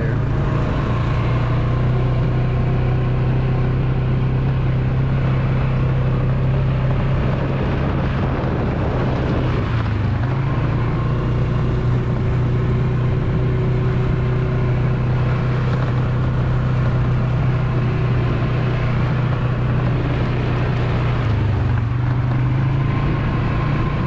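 Engine of a small vehicle running steadily while being driven along at an even pace, heard from the rider's seat as a constant low hum.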